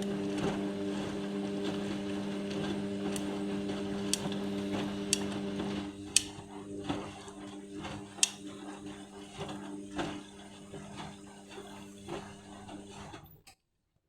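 Indesit washing machine running: a steady electrical hum from one of its motors, over rushing, sloshing noise and a few sharp clicks. It gets quieter after about six seconds, the hum stops near the end, and the sound cuts off to silence just after.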